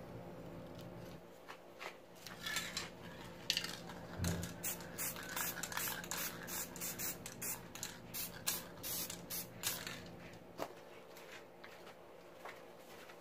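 Aerosol spray-paint can hissing in a quick series of short bursts, about two a second. The bursts start about two seconds in and stop about ten seconds in.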